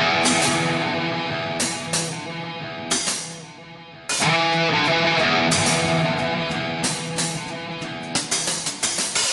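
Instrumental intro of a rock song: electric guitar chords ringing out and fading, then struck again about four seconds in. Drum hits begin near the end.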